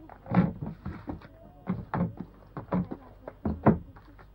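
Books being picked up and set down on a tabletop one after another: a run of short knocks at irregular spacing, about two or three a second.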